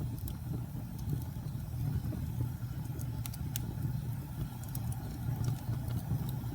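Wood fire burning in a fireplace: a steady low rumble of the flames with scattered crackles and pops, a few sharper pops about three seconds in.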